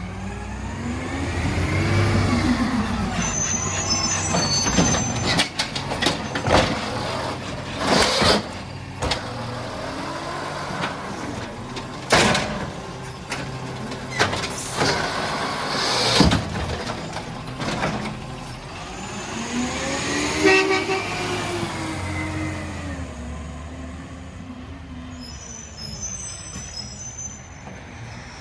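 Garbage truck at work: its engine revs up and back down twice, once near the start and again about twenty seconds in. In between come several loud bangs and clanks. Brief high-pitched squeals sound near the start and near the end.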